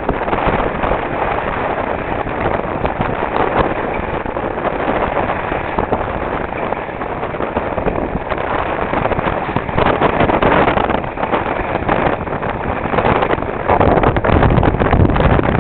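Wind buffeting the microphone and water rushing past a small sailboat under way, a steady noise with no engine in it. The buffeting grows heavier and deeper near the end.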